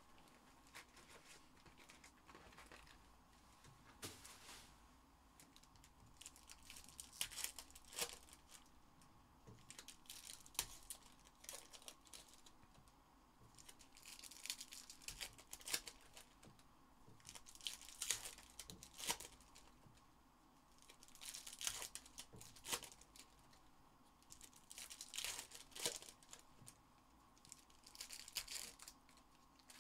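Foil trading card packs of 2021 Skybox Metal Universe Champions being torn open and crinkled by hand, one after another. The crackling of the wrappers comes in short bursts every few seconds.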